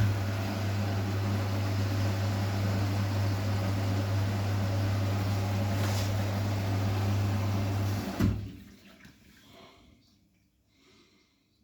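Vestel CMI 97302 washing machine taking in water at the start of a wash programme: a steady rush of water with a low hum, which stops abruptly about eight seconds in with a short knock and leaves near silence.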